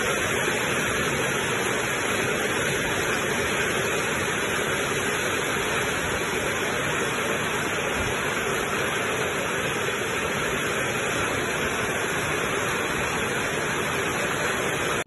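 Heavy rain pouring down in a steady, dense hiss, cutting in and out abruptly.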